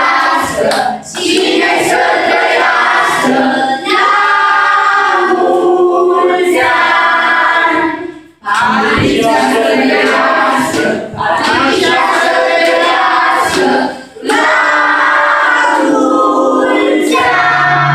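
A group of women and children singing a birthday song together, clapping along. Their singing breaks off briefly twice, about halfway through and again near the end.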